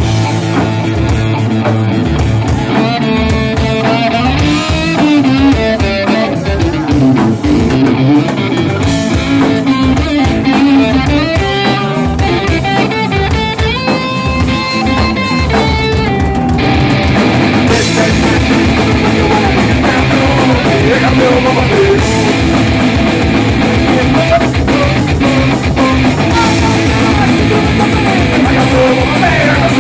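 Live rock band playing: electric guitar, bass and drum kit, loud and steady, the sound growing fuller and brighter a little past halfway.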